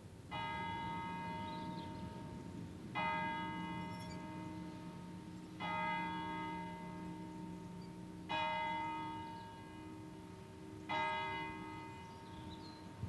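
A single bell struck slowly, five strokes about two and a half seconds apart, each one ringing on and fading before the next, with a low hum lingering between strokes.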